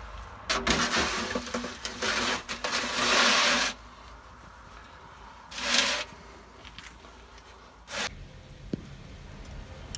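Metal baking tray scraping across the oven floor as it is pushed into a wood-fired oven: a long scrape in the first few seconds, then a shorter scrape about six seconds in and a brief one near the end.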